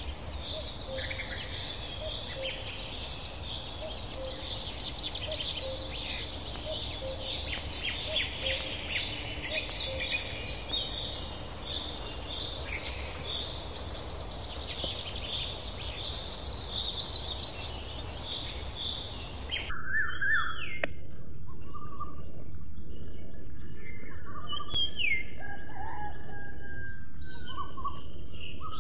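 Many small birds chirping and twittering in quick, overlapping calls. About two-thirds of the way through, the sound cuts abruptly to louder, different bird calls that slide up and down in pitch, over a steady high-pitched hiss.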